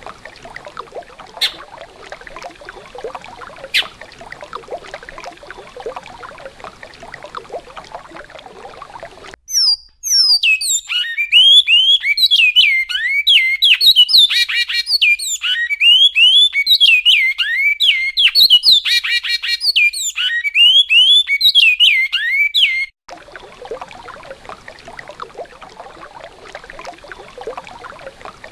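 Flowing river water for about nine seconds, cut off abruptly by a recorded great-billed seed finch (bicudo) singing its classic goiano song: a fast run of clear whistled notes sliding up and down for about thirteen seconds. The song then stops abruptly and the river water resumes.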